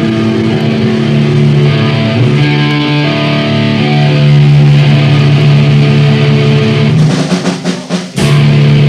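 Guitar playing loud, sustained notes in a rough home-taped jam. About seven seconds in it breaks into a few short choppy stabs, then the held notes resume.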